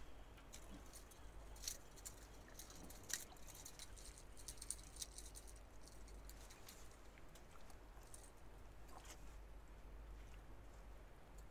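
Near silence, with a faint low rumble and a scatter of faint, irregular clicks and ticks in the first half.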